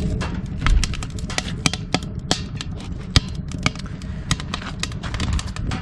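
Damp firewood crackling inside a closed homemade steel tent stove: irregular sharp pops and snaps, several a second, over a low steady rumble.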